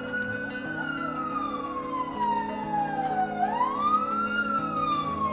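Emergency vehicle siren wailing: a slow downward sweep in pitch, a quick rise about three and a half seconds in, then another slow fall.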